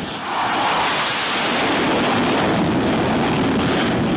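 F/A-18 jet engines running loud as the jet lands on a carrier flight deck: a dense, rushing roar that drops in pitch over the first couple of seconds, then holds steady.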